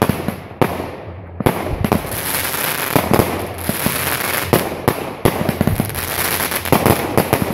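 Aerial fireworks going off: a rapid, irregular string of sharp bangs over dense crackling from bursting stars.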